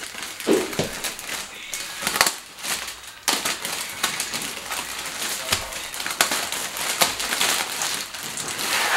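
Clear plastic wrapping crinkling and crackling as it is slit with a utility knife and pulled off a flat board panel, with many irregular sharp clicks.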